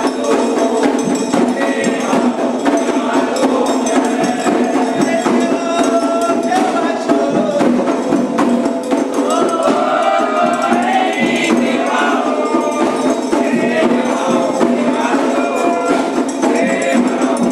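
Candomblé ritual song: a group of voices singing together over steady hand percussion, continuous and loud.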